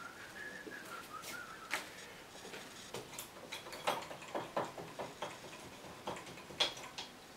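Paintbrush dabbing and tapping against a stretched canvas on an easel: a run of light, irregular taps and clicks. A faint wavering high tone sounds for about the first second and a half.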